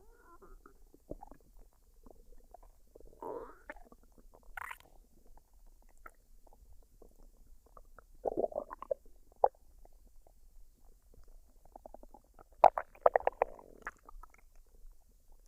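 A woman's stomach gurgling as it digests a meal: soft bubbling broken by a few bursts of rapid popping gurgles, the loudest run near the end.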